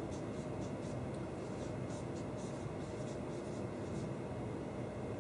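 Dry-erase marker writing on a whiteboard: a quick run of short scratching strokes as letters are formed, over a steady low room hum.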